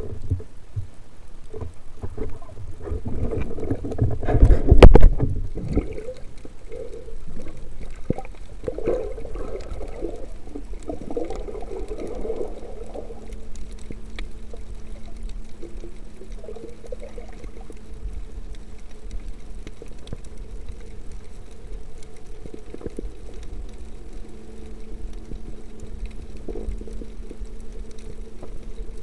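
Underwater ambience recorded through an action camera's waterproof housing: muffled water movement, with a loud muffled rush of water about five seconds in. From about the middle on, a steady low hum runs underneath.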